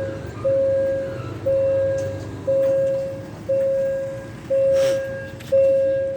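Railway level-crossing warning signal sounding, a single electronic tone beeping about once a second while a train approaches.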